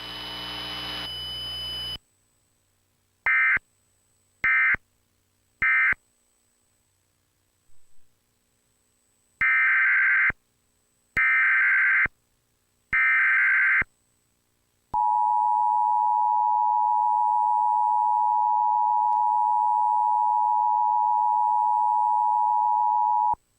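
Emergency Alert System tones relayed through a Trilithic EASyPLUS unit. First come three short end-of-message data bursts, then three roughly one-second SAME header bursts announcing the next blizzard warning. About 15 seconds in, the steady two-tone EAS attention signal sounds for about eight seconds and cuts off sharply.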